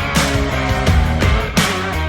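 Rock music with distorted guitar and a steady drum beat.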